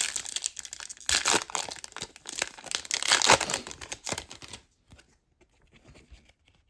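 Crinkling and rustling of a foil trading-card pack wrapper and cards being handled, dying down to a few faint ticks after about four and a half seconds.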